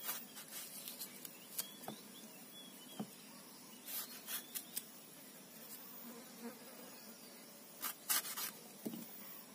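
Kitchen knife slicing through small tomatoes held in the hand: a series of short, crisp cutting clicks that come in clusters, busiest about four seconds in and again near the end.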